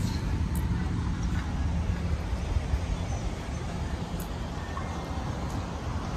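Outdoor ambience: a steady low rumble of wind on the microphone, with a few faint ticks.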